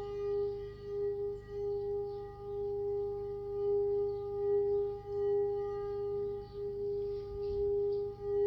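Crystal singing bowl holding one steady ringing tone with fainter overtones above it. Its loudness swells and fades in slow waves, about once a second.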